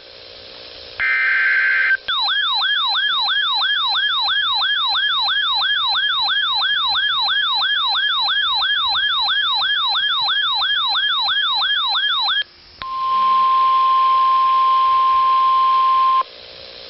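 Emergency Alert System alert tones: a final short data burst of the SAME header, then a siren-like warbling tone that sweeps about three times a second for some ten seconds, then the steady single-pitch NOAA Weather Radio warning alarm tone for about three seconds.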